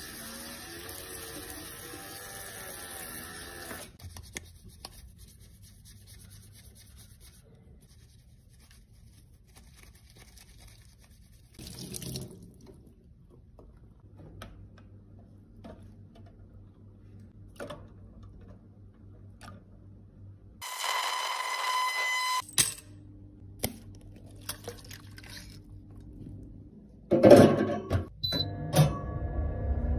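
Tap water running onto a plastic eyeshadow palette held over a stainless steel sink for about four seconds, followed by quiet handling with a few light ticks. About twenty seconds in, a steady high tone sounds for about two seconds, and near the end come louder knocks and clatter.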